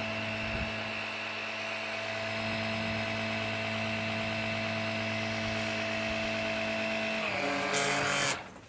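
Small electric pump running with a steady hum, drawing diesel out of the car's fuel tank. Its pitch drops slightly near the end, then a brief louder hiss comes before it cuts off.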